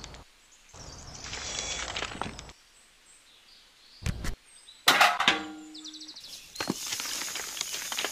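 A small metal shovel scrapes through sand and gravel. Stones then drop into a small tin pail, with a knock and then a sharp clank that rings briefly about five seconds in. Near the end gravel pours out of the pail with a dense, crackling rattle.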